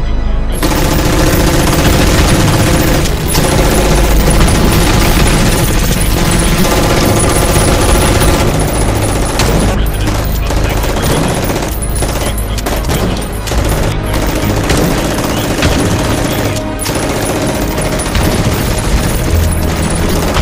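Film soundtrack of sustained rapid gunfire mixed with music, cutting in abruptly about half a second in.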